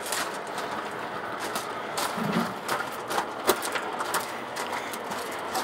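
O gauge model goods train running on the layout's track: a steady rolling noise with irregular small clicks and ticks from the wheels and rolling stock.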